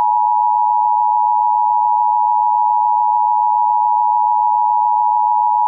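Loud, steady electronic attention tone of the kind used by emergency broadcast alerts, held at one unchanging pitch.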